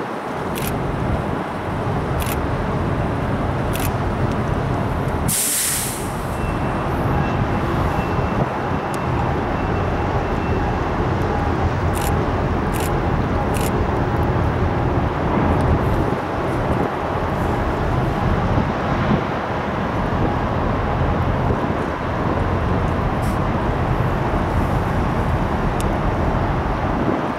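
Steady low outdoor rumble with a short sharp hiss about five seconds in and faint clicks now and then.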